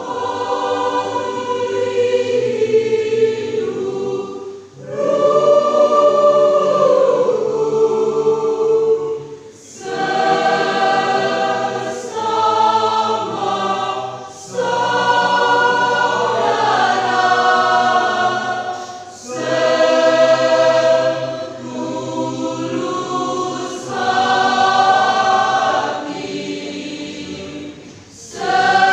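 Church choir singing a hymn in sustained phrases, with a brief break for breath about every four to five seconds.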